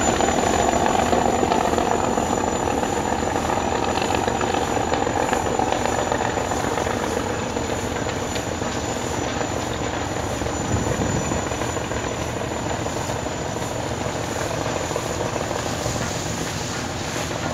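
Steady drone of a large river passenger launch's diesel engines running under way.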